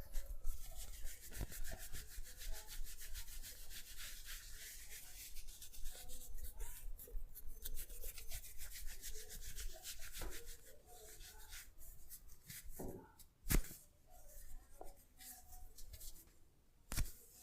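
Hands rubbing briskly over hair and skin in a head massage, a fast scratchy scrubbing that eases off about ten seconds in. A few sharp clicks follow in the second half, the loudest about two-thirds of the way through and another near the end.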